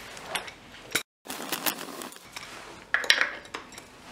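Ratchet wrench working bolts on an engine's front pulleys: scattered metal clicks and clinks, with a short quick run of clicks about three seconds in as the loudest part. A moment of dead silence about a second in breaks it.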